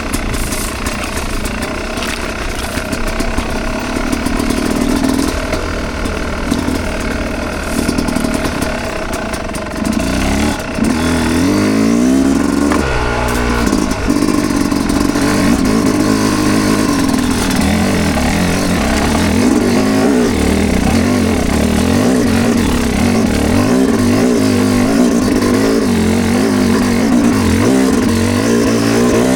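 Dirt bike engine running on a trail ride, revs rising and falling as the throttle and gears change. It gets louder about ten seconds in and keeps pulling hard after that.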